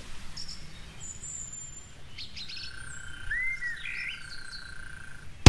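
Bush ambience of birds chirping and calling over faint insects. A long steady whistled note runs through the middle, with a few short arching and rising calls over it.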